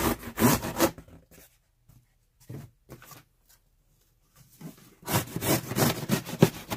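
Corrugated cardboard box flaps being pulled open, the cardboard scraping and rubbing in two noisy stretches: one in the first second and a longer one from about five seconds in.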